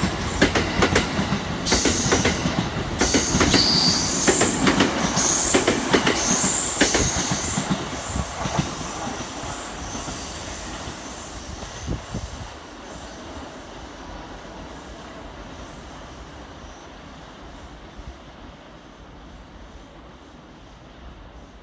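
Electric commuter train moving along the rails, its wheels clicking over the rail joints and squealing at high pitch, the sound fading away over about the first twelve seconds.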